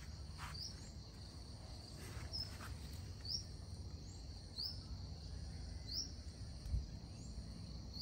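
Insects trilling steadily in a high even drone, with a short rising chirp repeating about once a second. A soft low bump comes near the end.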